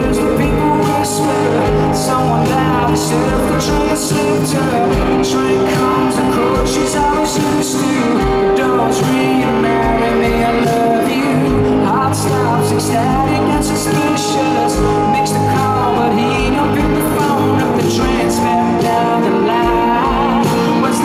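Live rock band playing a song: electric guitars with a man singing the lead vocal.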